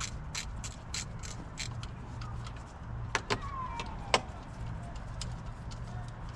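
Socket ratchet clicking as a 13 mm idler-pulley bolt is undone, about three clicks a second, with a few louder metallic knocks around the middle.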